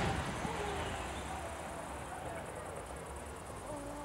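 Echoing rumble of an aerial firework shell burst fading away, then a low background with faint spectators' voices.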